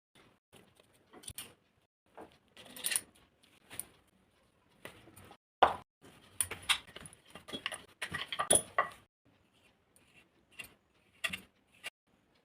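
Irregular taps, clinks and rustles of kitchen handling, busiest in the middle.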